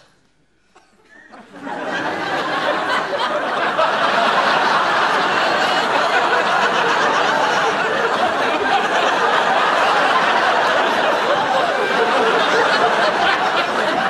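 Studio audience laughing, swelling up about a second and a half in and then holding loud and steady.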